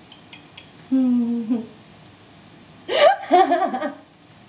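A woman's wordless vocal sounds: a short, steady hum about a second in, then a louder, breathy vocal outburst a little before the end.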